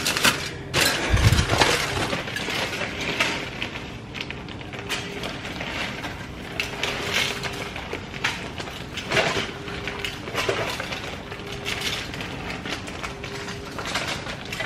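Aluminum foil crinkling and rustling as it is handled, with irregular crackles and light clinks of a fork and tongs against it. A dull thump about a second in.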